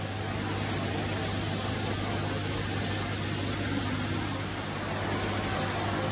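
Steady low machine hum under an even hiss, the running background noise of the aquarium's equipment.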